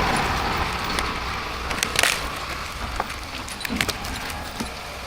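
A machine's engine running and fading away, with a few sharp cracks over it, the loudest about two seconds in.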